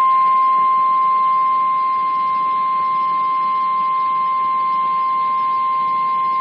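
National Weather Service warning alarm tone over NOAA Weather Radio: one steady high tone with a light hiss of radio static behind it. It is sent here as a test; it is the signal that automatically switches on specially equipped weather alert receivers.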